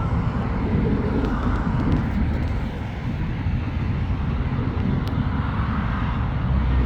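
Aircraft engine noise during a landing, a steady low rumble.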